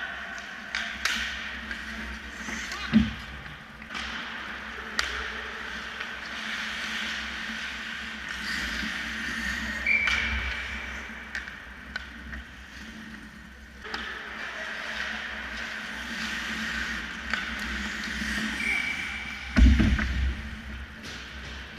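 Ice hockey play: skates scraping across the ice with scattered sharp clacks of sticks and puck, and a heavy thud near the end, the loudest sound.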